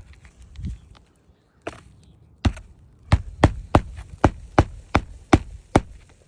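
Hammer striking in a quick, even run of about nine sharp blows, roughly three a second, starting about two and a half seconds in.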